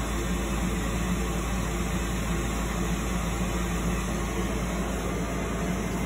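Gas furnace's draft inducer fan motor running with a steady hum during start-up, before the hot-surface igniter glows orange.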